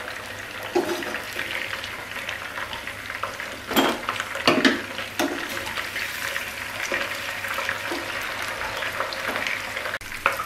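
Marinated chicken quarters frying in oil over low heat, a steady sizzle, with metal tongs clattering and scraping against the pan as the pieces are lifted out; the loudest clatters come about four and five seconds in.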